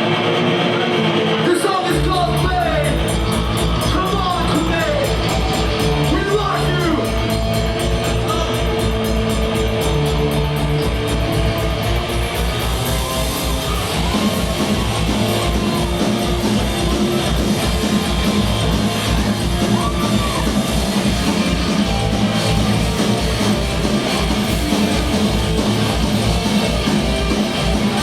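Punk band playing live: electric guitar opens the song alone, drums and bass come in with a fast steady beat about two seconds in, and shouted vocals ride over the full band.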